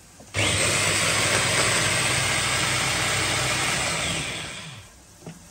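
Electric mini chopper's motor running at full speed as it purées tomatoes, starting about a third of a second in and winding down about four seconds later.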